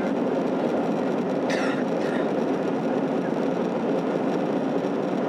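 Steady cabin noise inside an Airbus A321-211 airliner in flight: the hum of its CFM56 turbofan engines mixed with the rush of air over the fuselage. A brief higher hiss sits on top of it about a second and a half in.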